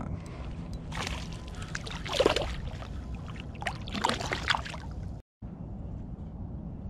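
Water splashing in several bursts as a hand releases a small smallmouth bass into shallow river water, the loudest splash a little after two seconds, over a steady low rumble. The sound cuts out completely for a moment a little after five seconds.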